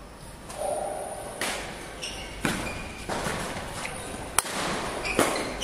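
Badminton rally: rackets striking the shuttlecock, five sharp hits roughly a second apart, with short high squeaks in between.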